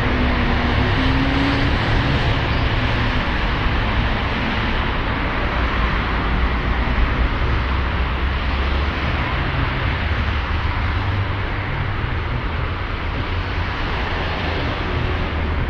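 Steady city road traffic: car engines and tyres running past on a busy street, a continuous low, even noise.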